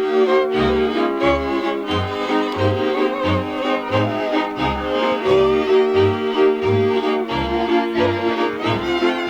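Transylvanian folk string band playing: a fiddle melody over held chords, with low bowed bass strokes keeping an even beat of about one and a half a second.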